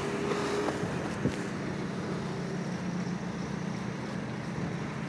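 Steady low outdoor street rumble with wind on the microphone, and a single sharp click about a second in.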